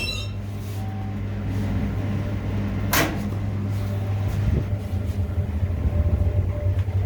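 Steady low mechanical hum, with one sharp knock about three seconds in.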